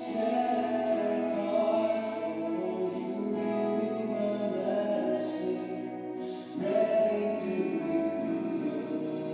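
Music: a quiet piece of long held notes, with a new phrase beginning about two-thirds of the way through.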